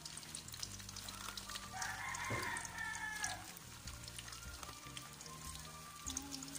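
Pork siomai frying in oil in a wok, with a light crackling sizzle. A rooster crows once, about two seconds in.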